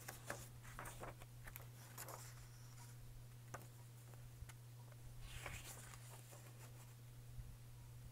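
Faint rustling and handling of paper sheets and cards shuffled by hand, with a few soft clicks, mostly in the first two seconds and again about five seconds in, over a low steady hum.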